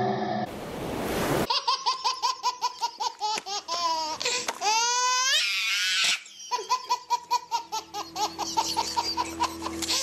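High-pitched laughter: quick ha-ha pulses of about five a second, broken by a couple of squealing whoops that rise in pitch. It follows a brief burst of hiss about a second in.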